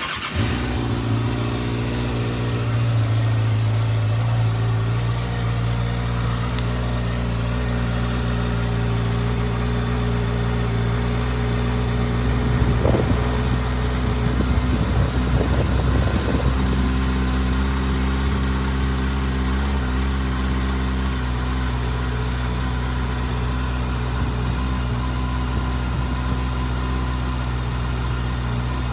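2024 Kawasaki ZX-6R's 636 cc inline-four on its stock exhaust, starting up suddenly and then idling steadily.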